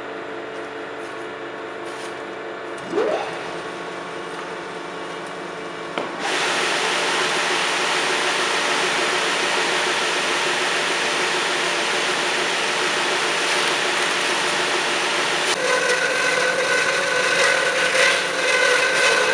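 CORMAK S-280R semi-automatic metal band saw running with a steady hum, then cutting into metal from about six seconds in with a much louder rasping noise. Near the end, steady high tones join the cutting noise.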